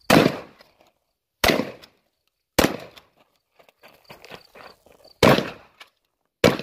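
Five shotgun shots with a short echo after each: three about a second and a quarter apart, then after a pause of about two and a half seconds with light clicks and rattles, two more.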